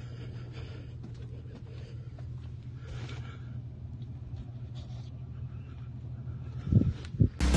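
Steady low hum of an idling vehicle engine, with a few heavy low thumps near the end, just as music comes in.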